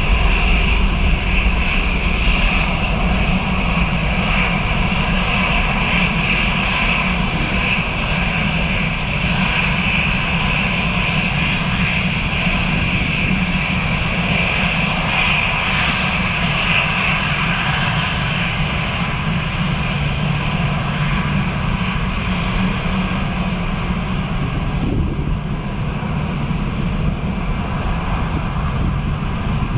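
Airbus A320's CFM56 turbofan engines running at low taxi power as the jet rolls slowly past: a steady jet roar with a high whine over a low rumble.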